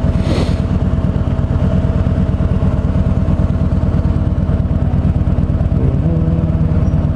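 An engine running at a steady idle, a rapid low throb, with a humming tone that steps up in pitch about six seconds in.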